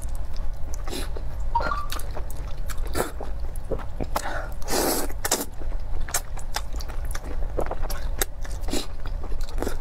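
Close-miked eating of sauced noodles: wet slurps, chewing and mouth clicks, with one longer, louder slurp about five seconds in.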